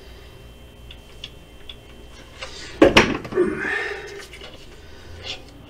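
Rear main bearing cap of a 417 stroker V8 being handled and seated against the engine block: a few light metallic clicks, one sharp knock about three seconds in with a brief scrape after it, and another small click near the end.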